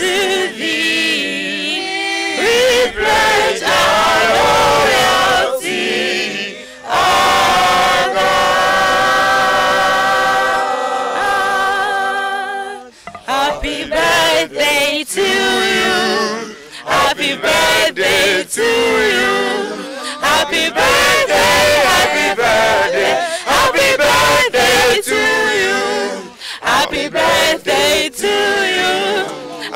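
A small mixed choir of men's and women's voices singing unaccompanied. A long held chord comes near the middle, then shorter phrases with quick breaks.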